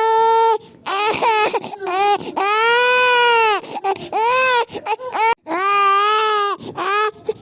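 Infant crying: several long, arching wails broken up by short, choppy sobs and catches of breath.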